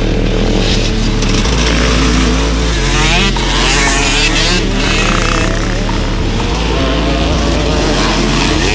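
Off-road motocross motorcycles racing, engines revving up and down, with the pitch rising and falling most plainly around the middle.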